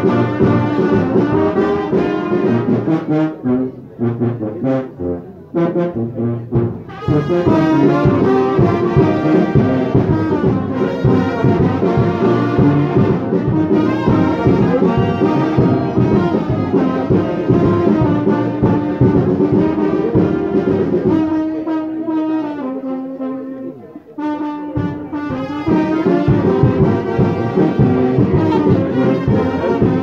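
Brass band playing a tune, horns over a steady drum beat, twice briefly dropping quieter: a few seconds in and again about three-quarters of the way through.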